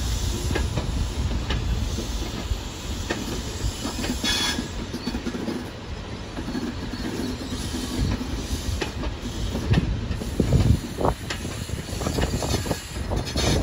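High Speed Train (InterCity 125) pulling away, its Mark 3 coaches rolling past with a steady low rumble and sharp wheel clicks over the rail joints, bunched most closely near the end.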